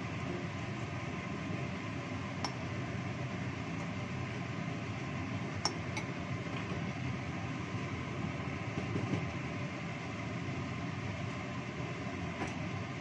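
Steady rushing noise of a gas stove burner heating a wok of cooking oil, with a few short faint clinks now and then.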